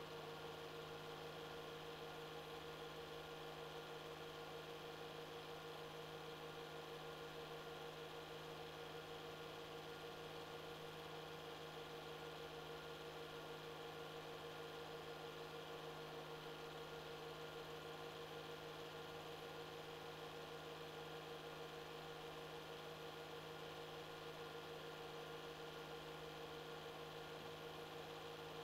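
Steady electrical hum with faint hiss and nothing else, a low tone with a higher one above it holding unchanged throughout.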